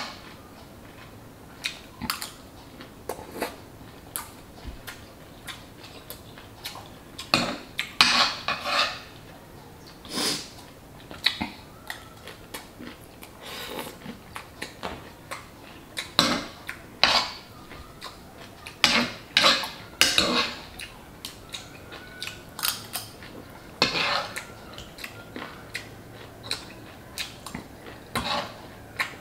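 A metal fork clinking and scraping against a frying pan as food is picked up, in irregular short bursts, with chewing in between.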